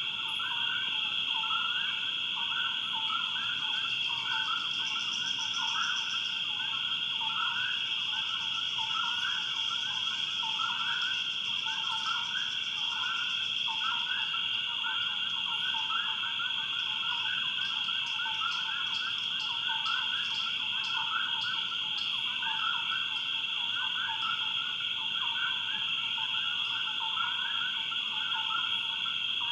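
Swamp chorus of frogs and insects: a steady high-pitched drone under many fast, pulsing calls that run on without a break.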